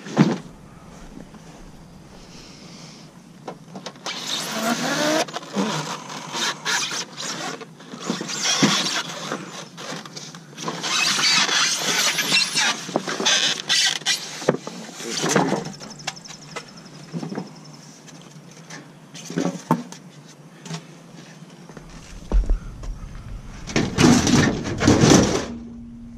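Curbside junk being handled and loaded: irregular clattering, rattling and scraping, with sharp knocks and a loud bang right at the start.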